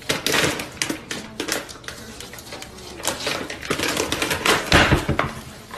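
Irregular clatter of many small clicks and taps, with a louder cluster of knocks about five seconds in.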